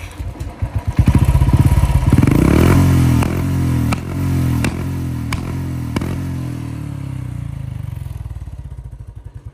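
Royal Enfield Bullet single-cylinder motorcycle revved up, then dropping back while its exhaust fires five sharp pops about two-thirds of a second apart, the 'misfire' backfire shots the bike is set up for. The engine then winds down toward a slow thumping idle.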